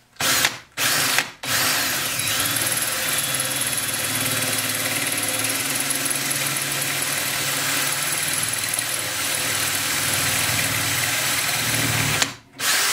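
Power drill with a 1/8-inch bit drilling out a hole in a Ford C6 automatic transmission's steel valve-body separator plate. It gives two short starts on the trigger, then runs steadily for about ten seconds before stopping near the end.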